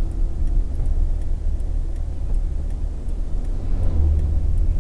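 Road noise inside a moving car's cabin, picked up by the dashcam microphone: a steady low rumble of tyres and engine at about 60 km/h, swelling briefly about four seconds in.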